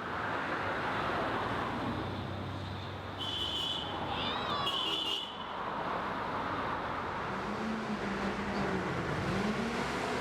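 City street traffic: a steady wash of cars passing. A brief high wavering chirp sounds about three to five seconds in, and a low engine note comes in near the end, dipping and then rising and falling.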